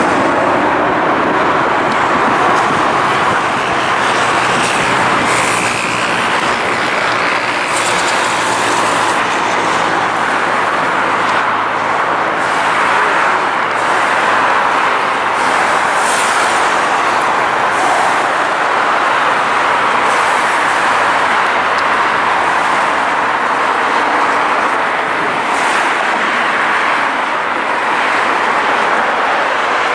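Boeing 747-8's four GEnx-2B turbofan engines at takeoff thrust: a loud, steady jet roar as the airliner climbs away after departure.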